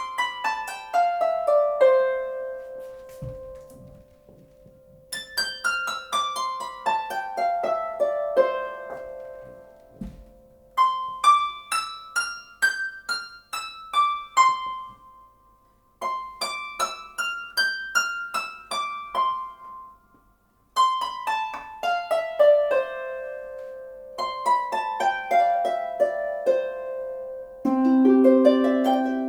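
Two 34-string Celtic harps, a Sligo Luchair and a Music Makers Regency, played in turn: short runs of plucked notes in the upper register, mostly falling scales, each phrase left ringing before a brief pause. Near the end lower notes join in under the run.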